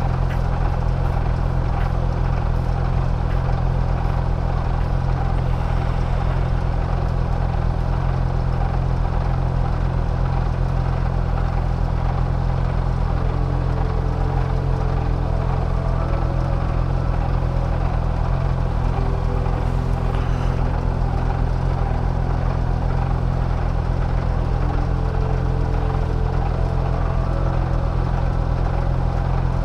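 Honda CBR650R's inline-four engine idling steadily, a brand-new engine still being run in.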